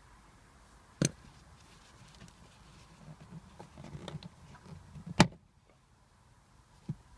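Plastic retaining clips of a Mercedes C-Class W204 front seat's rear backrest panel snapping loose as the panel is pried with a screwdriver and pulled away. A sharp click comes about a second in, then rubbing and handling of the panel, then a loud snap about five seconds in and a smaller click near the end.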